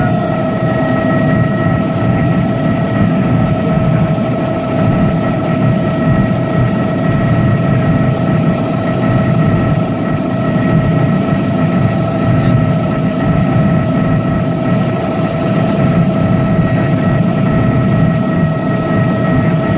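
Helicopter in steady flight, heard from inside the cabin: a constant drone of engine and rotor noise with a steady high whine over it.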